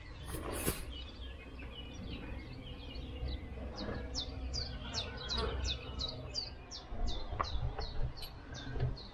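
A songbird singing a long run of quick, high, downward-sliding notes, about three a second, starting a few seconds in after some lower chirps. A couple of sharp clicks come near the start, over a steady low rumble.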